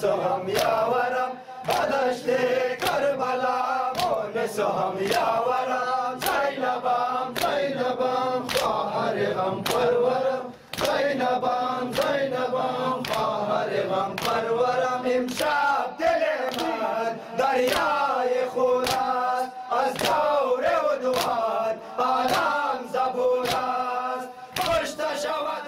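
Male mourners chanting a Shia mourning lament (noha) together while beating their chests in time. Sharp open-handed slaps on bare chests land about twice a second under the sung voices.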